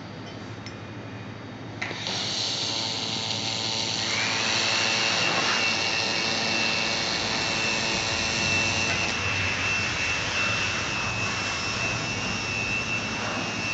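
Handheld fiber laser welding machine running: a steady, loud hiss starts about two seconds in. A steady high whine joins it about two seconds later.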